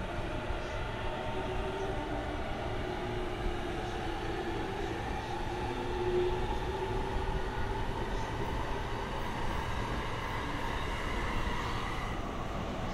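Freight train hauled by an EH500 electric locomotive moving along the tracks: a steady rumble with faint whining tones that drift slowly in pitch.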